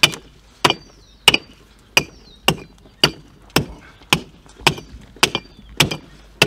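Steady chopping blows into a beef carcass's backbone, a little under two a second, splitting it down through the vertebrae.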